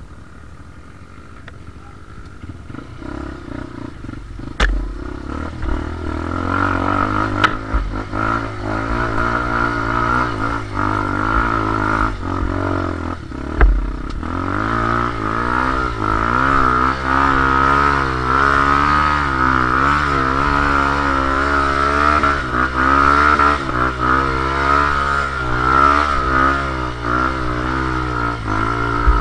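Dirt bike engine revving up and down without pause as it rides a rough, muddy single-track, with a few sharp knocks along the way. It is quieter for the first several seconds and louder from about six seconds in.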